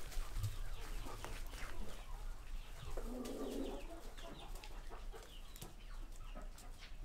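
Rhode Island Red chickens clucking quietly, with scattered short calls.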